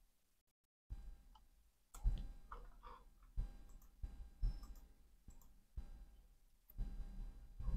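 Computer mouse and keyboard clicks, about six spaced irregularly, over faint low room noise.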